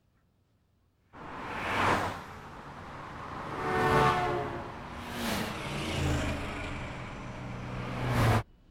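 Highway traffic: several vehicles rush past close by one after another, one of them with a falling pitch as it goes by. The sound starts suddenly about a second in and cuts off sharply near the end.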